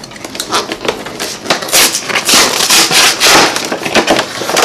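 Cardboard collector's box being opened by hand: irregular scraping, rustling and tapping as the box end is worked open and the box is shifted on a wooden table.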